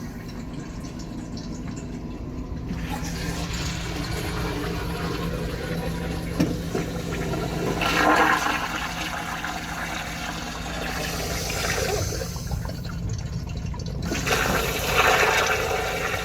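Kohler urinal flushing: a powerful rush of water that swells about halfway through, eases, then surges again near the end as another flush starts.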